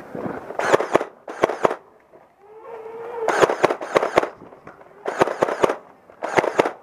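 Nerf Stampede ECS, rewired to a LiPo battery, firing on full auto in short bursts of rapid clacking shots, about five bursts, with a brief motor hum just before the longest burst.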